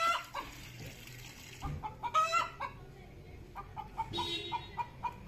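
Chickens clucking in runs of short repeated notes, broken by louder, drawn-out calls at the start, about two seconds in and again about four seconds in.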